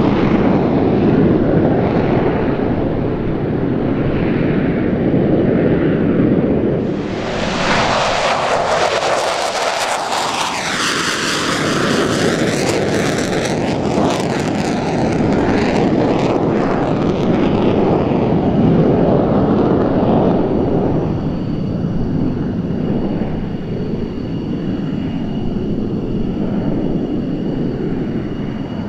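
McDonnell Douglas F-15 Eagle's twin turbofan jet engines on a climbing departure: a deep, steady rumble that turns sharply louder and hissier about seven seconds in as the jet passes closest, with a sweeping rush in the high end. About ten seconds later it eases back to a fading rumble with a faint high whine.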